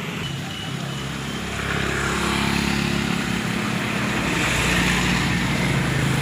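A small engine running steadily, getting louder about a second and a half in.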